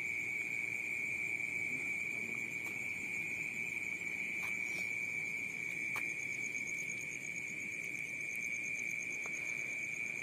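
Night insects chirring: a steady high-pitched trill that never breaks, with a second, higher pulsing call above it, over a low background hiss.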